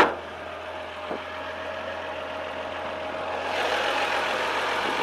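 1978 Datsun 280Z's fuel-injected L28E straight-six engine idling steadily, now running right after a crumbled PCV hose that caused a vacuum leak was replaced. A faint click about a second in; about three and a half seconds in the engine sound grows louder, with more rushing noise.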